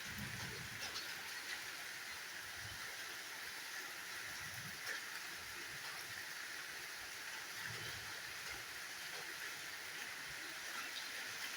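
Steady rush of a waterfall: a dense, even hiss of falling water, with a few soft low thuds.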